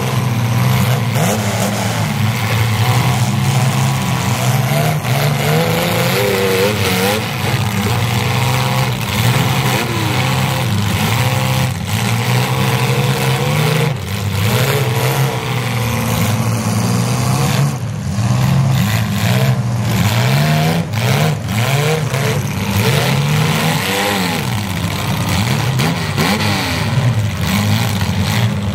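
Several demolition-derby compact cars' engines running and revving at once, their pitches rising and falling as the cars push and manoeuvre in the mud.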